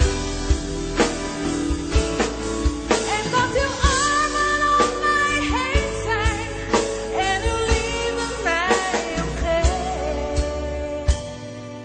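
A woman singing a soaring, ornamented vocal line with vibrato over a slow gospel-pop band with a steady drum beat. The drums stop and the music drops to a quieter accompaniment at the very end.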